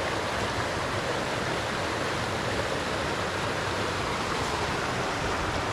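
Creek water running, a steady, even rush of flowing water.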